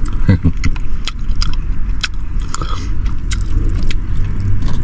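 A person gnawing and chewing on meat bones close to the microphone, with many small crunching clicks, over a steady low rumble.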